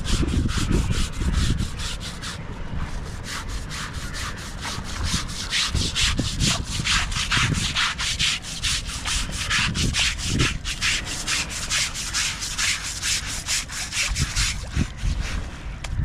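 Rapid, rhythmic scrubbing strokes, several a second, on an Asian elephant's hide during its bath. The scrubbing is steady for most of the stretch and stops shortly before the end.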